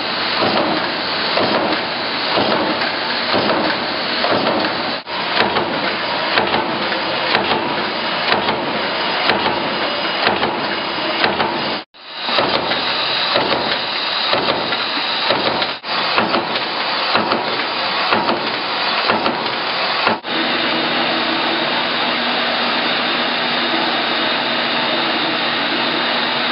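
Bliss mechanical stamping press running a progressive die, punching and drawing washers from 0.062-inch aluminium strip: a loud, fast, regular clatter of press strokes. In the last several seconds the strokes give way to a steadier noise with a low hum.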